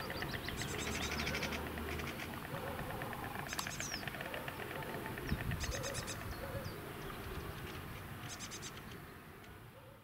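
White storks clattering their bills on the nest, the pair's bonding display: several bouts of rapid clicking rattle. Small birds chirp faintly in the background.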